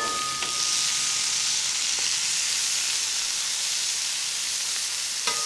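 Strips of marinated beef and chicken sizzling on a hot flat-top griddle, a steady hiss. A metal spatula clicks against the griddle at the start, with a short ringing tone, and clicks again near the end.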